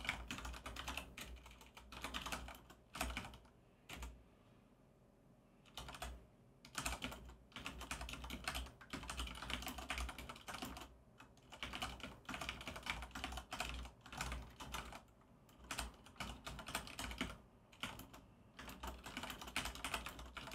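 Typing on a computer keyboard: runs of quick keystrokes broken by short pauses, the longest about four to six seconds in.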